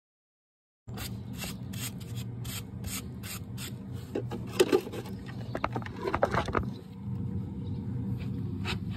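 Wooden-handled wire brush scrubbing the sole of a Shire horse's hoof. It starts about a second in with short scratchy strokes, about three a second, and gets heavier midway, over a steady low hum.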